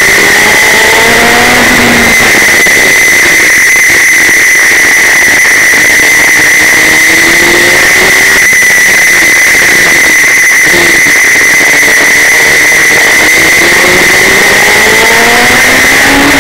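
Suzuki GSX-R 1000 inline-four engine in a racing prototype at full throttle, heard onboard. Its note climbs in pitch three times as it accelerates out of corners, over a constant loud rushing noise, and the recording is near full scale throughout.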